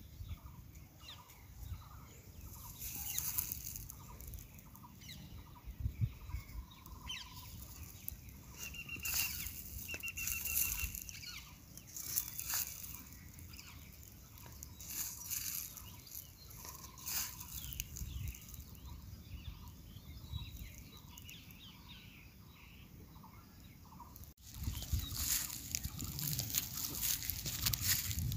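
Scattered bird calls and chirps, some short held whistles among them, over a low outdoor background hiss. About 24 seconds in the sound cuts off abruptly and comes back as louder, denser rustling noise.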